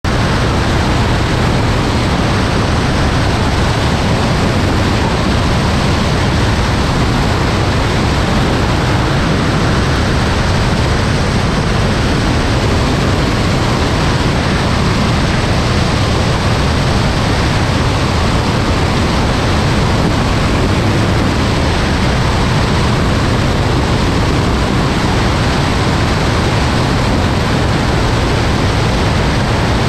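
Steady wind rush over a camera mounted outside a Cessna 172 Skyhawk II in flight, with the drone of its piston engine and propeller underneath.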